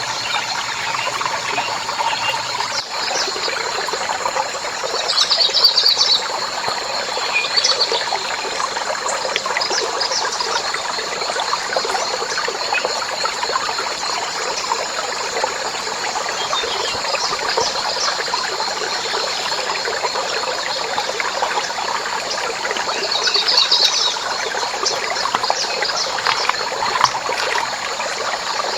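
Water trickling and running steadily, with short high chirps about five seconds in and again near the end.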